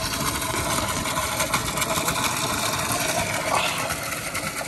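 Water gushing from a hose into a stock tub, with a skid steer's engine running steadily underneath.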